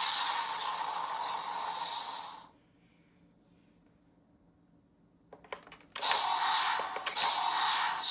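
Kamen Rider Vision Driver toy belt playing an electronic sound effect through its small speaker, which cuts off after about two and a half seconds. After a pause, a few sharp plastic clicks of the toy being worked, then another sound effect starts about six seconds in, with more clicks over it.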